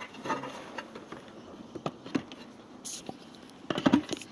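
Small clicks and scrapes of hands working plastic wire connectors loose from a cassette deck's circuit board, with a quick cluster of clicks near the end.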